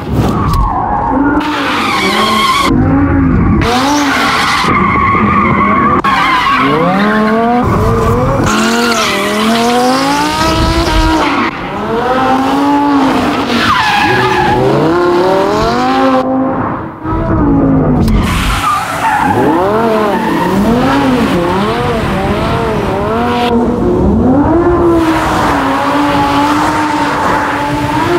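Lamborghini Huracán drift car's V10 engine revving up and down over and over through a drift, with tyres squealing and skidding as the rear wheels spin.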